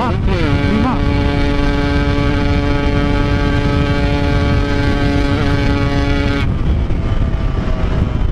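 Yamaha RX-King's single-cylinder two-stroke engine running hard at speed. Just after the start the pitch drops once, as on an upshift, then holds steady and high. About six seconds in the throttle is shut and the engine note cuts off suddenly, leaving wind rush.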